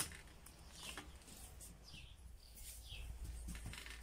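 Faint bird chirps, a few short calls, over a low steady hum, with a few light clicks.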